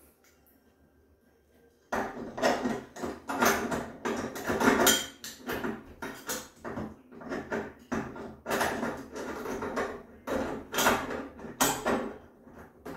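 Metal door lever handle parts clinking and rattling against the lock hardware as they are fitted, an irregular run of clicks and knocks that starts suddenly about two seconds in.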